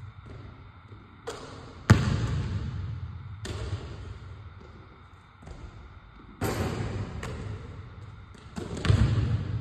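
A basketball bouncing and thudding on a hardwood gym floor during a passing and shooting drill: several sharp hits, the loudest about two seconds in, each with a long echo through the large empty gym.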